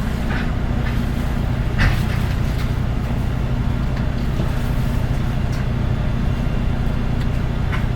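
Nissan Diesel Space Runner RM city bus's diesel engine idling steadily with a low hum, heard inside the bus, with a single knock about two seconds in.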